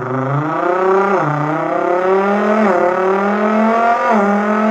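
A person's voice imitating the twin-turbo V6 of a Nissan GT-R R35 (VR38DETT) accelerating. The engine note climbs in pitch and drops back three times, about a second and a half apart, like upshifts through the gears.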